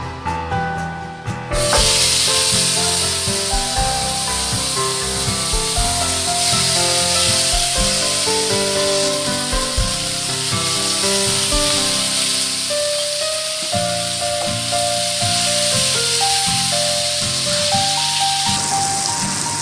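Marinated lamb chops sizzling on a hot ridged grill pan: a loud, steady hiss that starts suddenly about a second and a half in, as the first chop goes onto the pan. Background music plays throughout.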